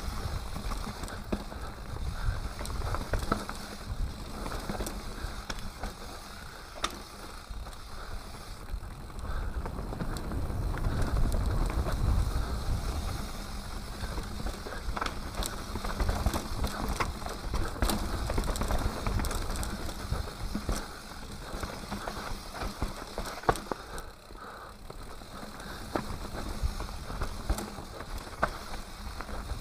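Enduro mountain bike descending a dirt forest singletrack: tyres rolling over packed dirt and leaves, with frequent rattles and clacks from the chain and frame over bumps. A low rumble of wind on the microphone rises and falls throughout.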